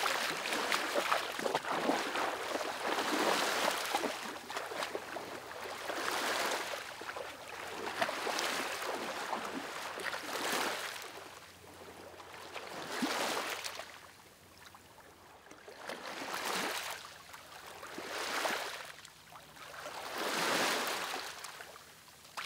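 Small sea waves washing onto a sandy beach: a soft hiss that swells and fades every two to three seconds, with quieter lulls between the swells in the second half.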